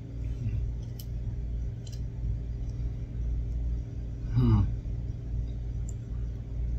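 A man's short, low "hmm" a little past halfway, falling in pitch, as he weighs the taste of a sip of cognac. Under it is a steady low hum with a few faint clicks.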